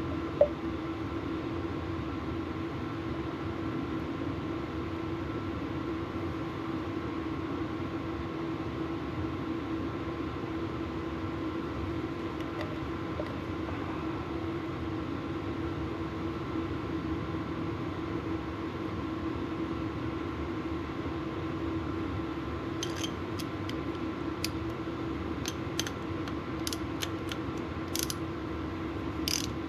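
A steady mechanical hum with a low tone and a fainter higher whine. A single sharp click comes about half a second in, and a run of light metallic clicks and taps starts near the end as small brake parts (caliper slide pins) are handled.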